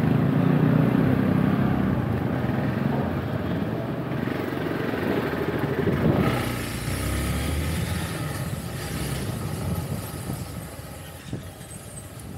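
Motorbike engine running at low speed through a crowded narrow street, with other motorbikes and street noise around. About six seconds in, the low engine sound drops back and a higher hiss takes over, and the whole sound eases off toward the end.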